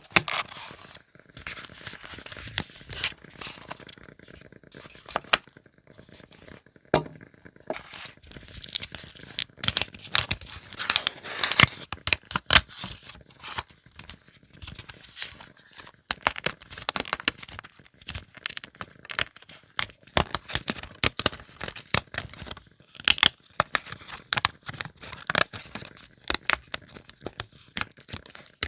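Paper being handled up close: crinkling and tearing, a dense run of irregular sharp crackles.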